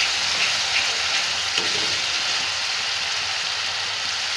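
Chopped onions and ginger-garlic paste sizzling steadily in hot oil in a kadhai, stirred now and then with a spatula.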